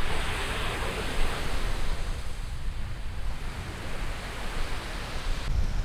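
Small waves breaking and washing up a sandy beach, louder in the first second or so, with wind rumbling on the microphone.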